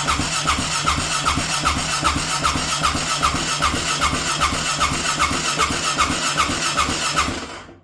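Honda Rincon 650's single-cylinder engine cranking on the electric starter without catching, a steady rhythmic chugging with a repeating squeaky chirp, stopping near the end. It does not fire because fuel has not yet reached the freshly refitted carburetor and the engine needs priming.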